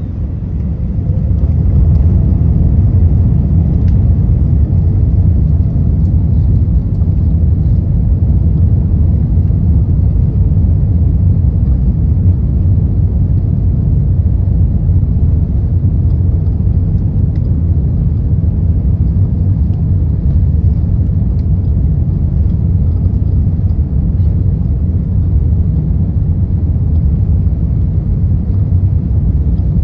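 Airbus A380's four Rolls-Royce Trent 900 engines at takeoff power, heard from inside the cabin. The deep rumble grows louder over the first couple of seconds, then holds steady and loud.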